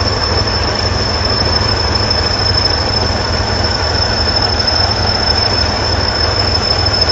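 Heavy machinery running: a steady diesel engine rumble under a constant high-pitched whine and a wide hiss of mechanical noise.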